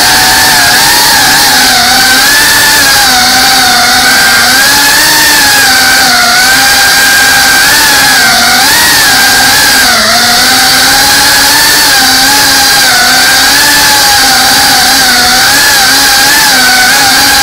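FPV drone's electric motors and propellers whining steadily, the pitch wavering up and down with the throttle.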